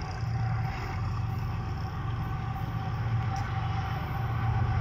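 Diesel locomotive of a freight train approaching down the line: a steady low engine rumble that grows gradually louder.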